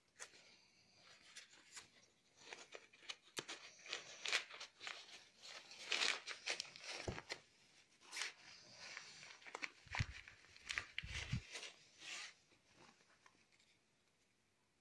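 Stiff nylon stroller fabric rustling and crinkling as it is handled and tucked into place, with small clicks of plastic harness buckles and straps. A few dull bumps come about ten seconds in.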